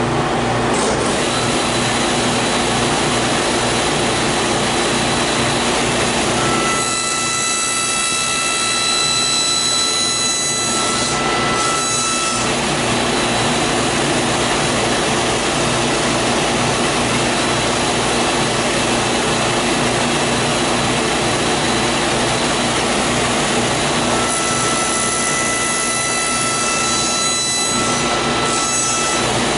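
Table saw running steadily, its blade cutting a notch across a narrow wooden strip twice, from about 7 to 12 seconds in and again near the end. Each cut adds a high, steady whine over the motor's running sound. The notches are half-lap joints for a divider grid.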